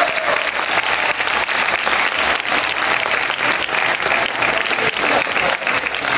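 Audience applauding steadily at the end of a live guitar-and-vocal performance.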